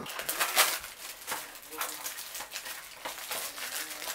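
Plastic wrapping on a Blu-ray case being picked at and torn open: irregular crinkling and tearing rustles, loudest about half a second in.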